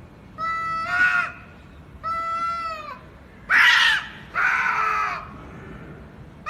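A pet parrot giving a run of loud pitched calls, five in about five seconds, each under a second long; the later ones are harsher and louder.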